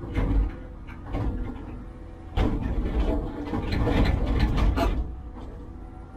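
Heavy construction machine working: a low engine rumble with irregular metallic clanks and clatter, busiest in the middle stretch.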